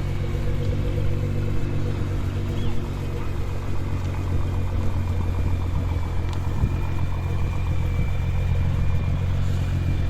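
Nissan GT-R R35's twin-turbo 3.8-litre V6 idling with a steady low rumble, with a faint steady high whine above it.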